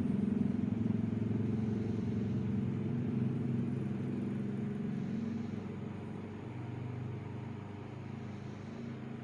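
A motor running steadily with a low, pulsing hum that slowly fades.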